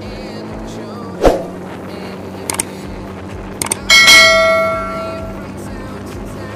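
A subscribe-button sound effect: a few short clicks, then a bright bell ding about four seconds in that rings out and fades over a second or so. Underneath, a motorcycle engine runs steadily while riding, with a sharp knock about a second in.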